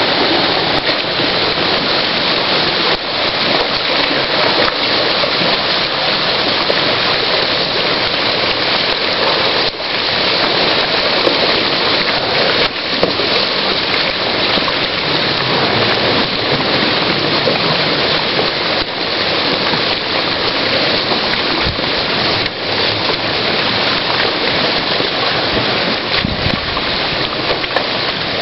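Ice jam on a creek: broken ice floes and water moving together, making a loud, steady rushing hiss.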